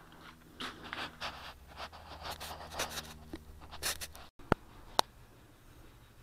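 Light, irregular scraping and rustling handling sounds, then two sharp clicks about a second apart near the middle.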